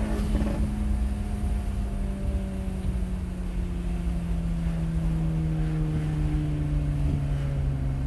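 2022 Audi S3's turbocharged 2.0-litre four-cylinder engine winding down off the throttle as the car slows after a full-throttle pull, its note falling slowly and steadily, heard from inside the cabin.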